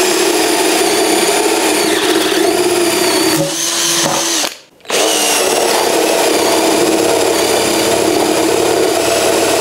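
ES Industrial LH216K cordless drill boring through plywood with a 20 mm spade bit in drilling mode. The motor runs steadily under load, stops for a moment about halfway through, then starts again.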